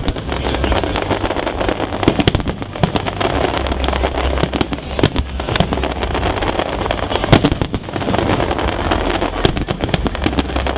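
A fireworks display of aerial shells bursting in quick succession, a dense run of bangs and crackles, with one especially loud bang about seven seconds in.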